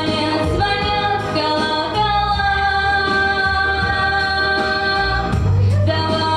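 A female vocalist sings a song with instrumental accompaniment and a steady bass. She holds one long note for about three seconds in the middle.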